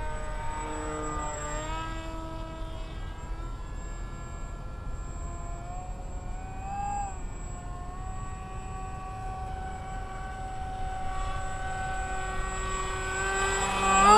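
Electric motor and propeller of an F-16 foam park jet in flight, a steady whine whose pitch rises and falls with the throttle. It grows loud near the end as the plane passes close by.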